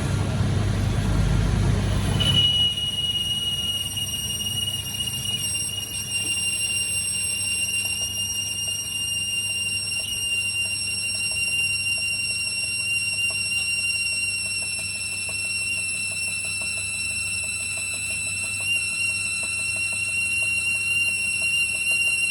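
A workshop machine running with a steady high-pitched whine over a low hum. The whine sets in about two seconds in, after a brief low rumble.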